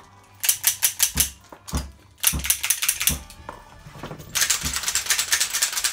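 Single-action revolvers dry-fired on snap caps: three runs of rapid metallic clicks from the hammers being cocked and snapped, with a few dull thumps among them.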